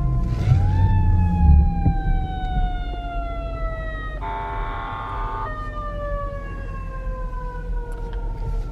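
Emergency vehicle siren passing: a short rise, then a long, slowly falling wail, with a horn blast of about a second roughly four seconds in. A steady low rumble of the vehicle's engine and tyres runs underneath.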